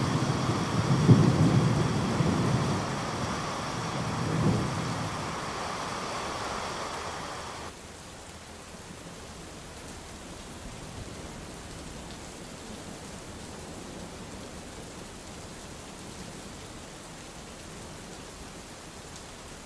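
Thunderstorm: a low roll of thunder over the first few seconds that fades away under steady rain. About eight seconds in the sound drops suddenly to a quieter, even rain hiss.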